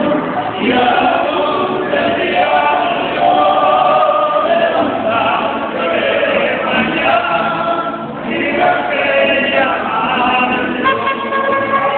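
A man singing a song, accompanied by a mariachi band with guitars.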